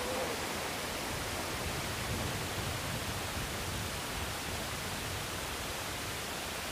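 Steady, even rushing noise of sea surf and wind.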